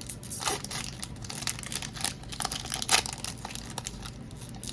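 Foil wrapper of a Pokémon TCG Lost Origin booster pack crinkling as it is handled and torn open, with one sharper crackle about three seconds in.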